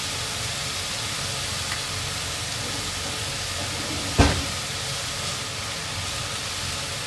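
Bitter gourd strips sizzling steadily in a hot frying pan. A single sharp knock comes about four seconds in, and a spatula then starts stir-frying the strips.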